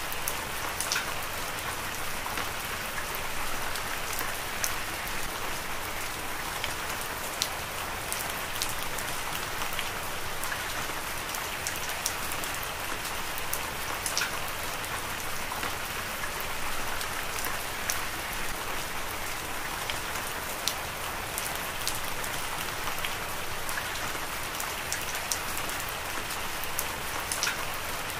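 Heavy rain falling steadily: a dense, even hiss with many sharp individual drops ticking on a surface.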